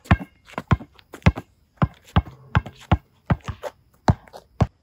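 A basketball being dribbled on a court: a steady run of hard bounces, about three a second.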